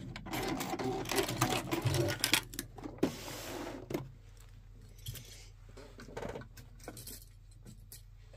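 Sewing machine running a short back stitch to lock off the end of a seam, stopping about two and a half seconds in. A brief rustle and a few light clicks follow as the fabric is handled.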